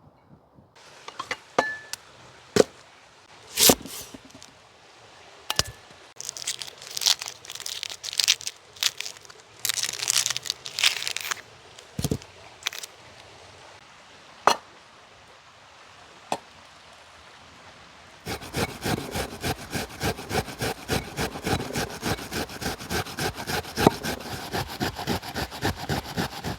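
Hand food-preparation noises: scattered cracks, scrapes and crinkles, then from about eighteen seconds in a quick, even run of knocks, about five a second.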